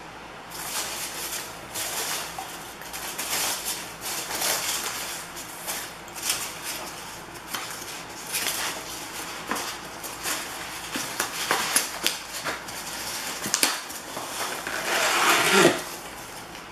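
A shipping package being opened and its contents handled: irregular rustling, crinkling and scraping of cardboard and packing material, with small knocks, the loudest crinkle near the end.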